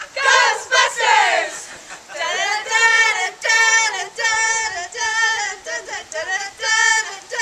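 A group of voices singing: a few quick shouted or sung phrases, then from about two seconds in a run of held sung notes.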